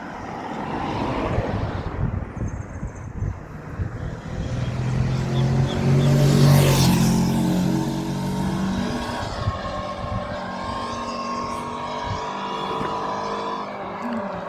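A motor vehicle approaches and passes close by, its engine hum and tyre noise loudest about halfway through, then fading as it moves away.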